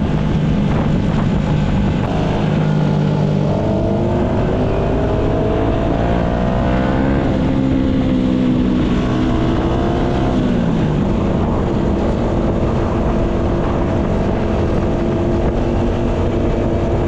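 Yamaha MT-125's single-cylinder four-stroke engine under way. Its pitch rises for several seconds, drops about seven seconds in, falls again near eleven seconds, then holds steady.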